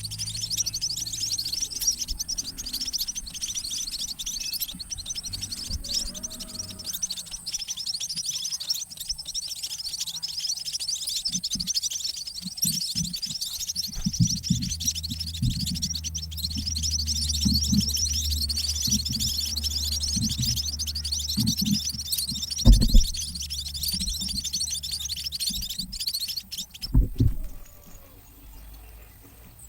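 A dense, continuous high chirping of munias (emprit) at the nest, typical of chicks begging while being fed by a parent. The chirping cuts off suddenly near the end. A low rumble runs under the second half, and two loud knocks come, one a little before the end and one near the end.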